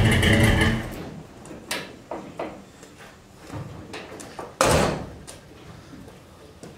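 Guitar music ending in the first second, then a few light knocks and, about four and a half seconds in, a pickup truck's door slamming shut.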